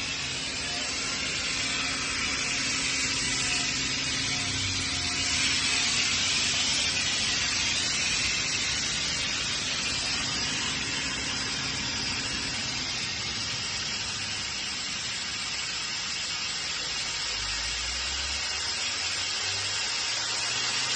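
Atlas Copco GA37 VSD oil-injected rotary screw air compressor running: a steady hiss with a low hum under it that stops about two-thirds of the way through.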